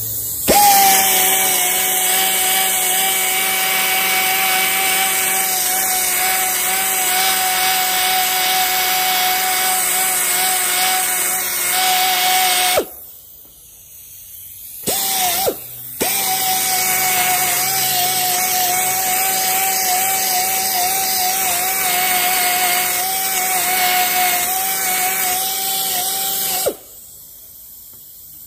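Corded electric polisher with a yellow foam pad buffing the sanded resin coat of a carbon fiber hood, its motor running with a steady whine. It stops about 13 seconds in, gives a brief burst, then runs again until shortly before the end.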